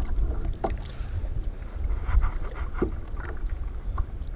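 Wind rumbling on the microphone over water sloshing around a kayak, with a few short knocks and splashes as a striped bass is brought aboard.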